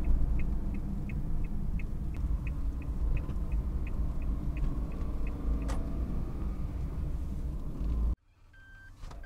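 Kei van's engine running with the turn-signal relay ticking about three times a second. The ticking stops about five seconds in and a single click follows. Near the end the engine is switched off, the rumble cuts out abruptly, and a short electronic warning beep sounds.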